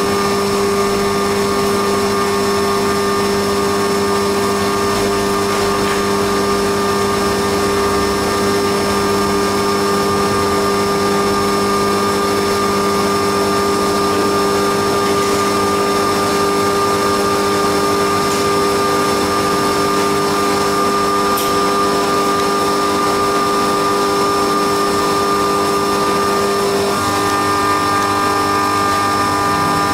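Haas CNC milling machine running a machining cycle, with a steady hum of several held tones over a noise bed from the spindle and cutting. The tones shift about 27 seconds in.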